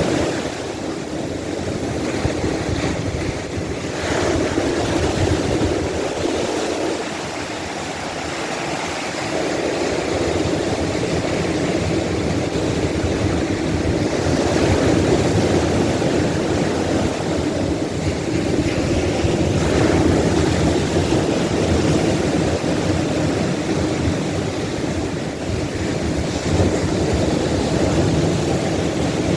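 Ocean surf: waves breaking and washing up the beach in slow, irregular swells, with a steady rumble underneath and some wind on the microphone.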